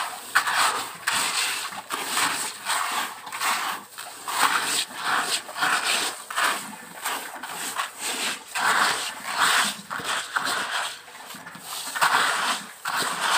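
Hybrid rice seed being stirred by hand in a plastic basin, giving repeated swishing rustles of the grains, one or two a second, as a red insecticide seed treatment is mixed through them.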